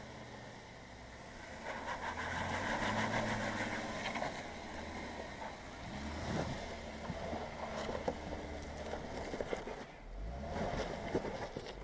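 Jeep Wrangler Unlimited Rubicon's engine running at low revs as it crawls slowly over rock steps, growing louder about two seconds in, with a few sharp knocks and crunches of its tyres and chassis against the rock.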